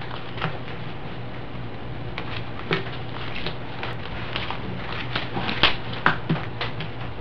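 Playing cards being handled and laid down on a table one at a time: a series of light, uneven taps and slaps, most of them in the second half, over a steady low hum.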